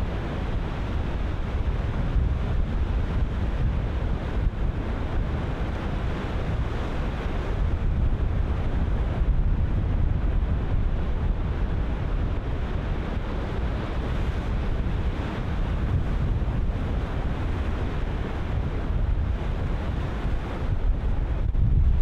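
Ocean surf breaking and washing in continuously, with wind buffeting the microphone.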